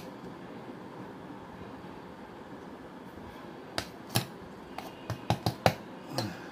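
Steel bowl tapping and knocking against a steel plate as dry, blender-ground bait powder is tipped out. A quiet stretch first, then from about four seconds in a quick, uneven series of sharp metal clicks.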